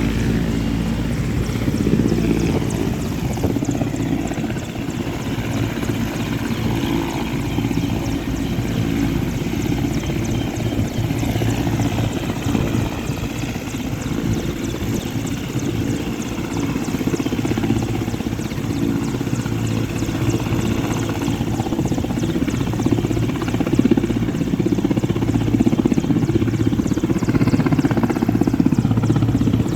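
Helicopter running, its rotor giving a steady low, rapid beat over engine noise, growing a little louder in the second half.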